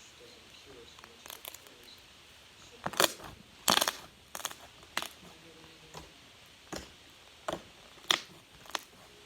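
A series of about a dozen short, sharp clicks and pops at irregular intervals, the loudest about three seconds in and near the end.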